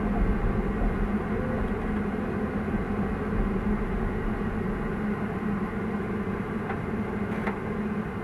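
Excavator's diesel engine running steadily with a constant low hum while the arm and bucket dig, heard from inside the operator's cab.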